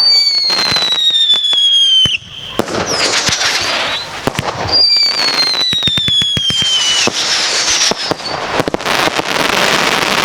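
Fireworks going off in a display: two long whistles, each falling in pitch over about two seconds, the first at once and the second about five seconds in, with rapid crackling through and between them.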